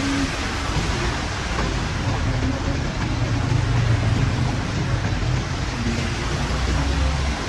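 Heavy rain hissing steadily, with wind rumbling on the microphone and swelling about halfway through.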